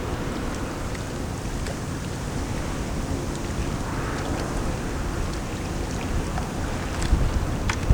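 Wind buffeting the microphone, a steady low rumbling rush that gusts stronger near the end, with a few faint ticks.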